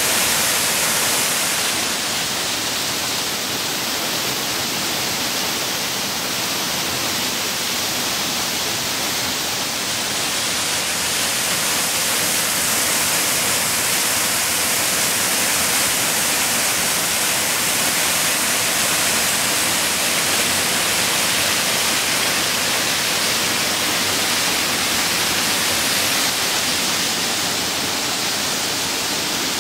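Waterfall pouring down stepped rock ledges and splashing onto the rock below: a steady, loud rushing hiss.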